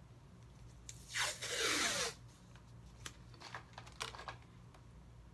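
Blue painter's tape pulled off the roll in one long pull, a noisy peeling sound lasting about a second that falls in pitch, starting about a second in. A few light clicks follow.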